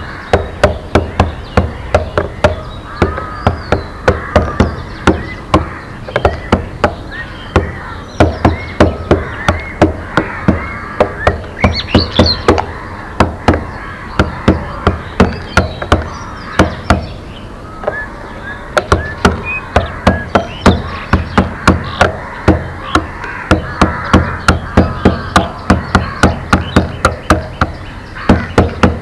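Rapid, regular knocking, about three to four sharp strokes a second with a couple of short pauses, over songbirds chirping.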